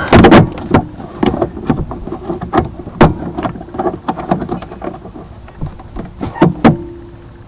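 Irregular sharp clicks and knocks of hard plastic being handled, from the BMW E46's tail light bulb carrier and bulbs being worked by hand.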